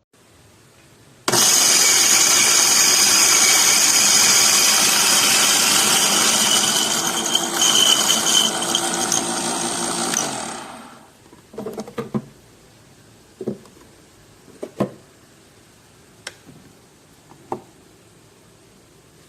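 Kanazawa electric coffee grinder switched on, its motor running loudly for about nine seconds before cutting off and winding down. A few separate knocks follow near the end.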